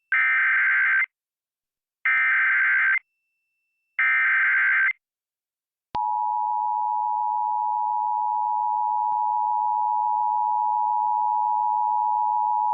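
Emergency Alert System SAME header on NOAA Weather Radio: three one-second bursts of digital data tones, about two seconds apart, encoding a tornado warning. About six seconds in, a steady attention tone starts and holds, announcing the warning message.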